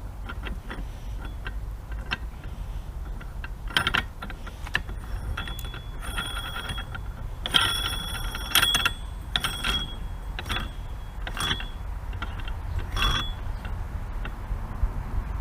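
Metal parts of a bench rest clicking and clinking as a height-locking piece is worked into its slot, with a cluster of louder, briefly ringing metallic clinks about halfway through.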